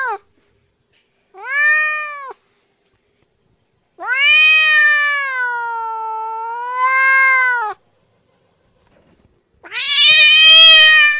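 Domestic cat meowing: a short meow, then a long drawn-out meow whose pitch sags in the middle and rises again, then another meow starting near the end.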